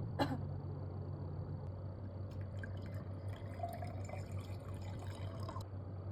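Liquid trickling and dripping for a few seconds, over a steady low hum.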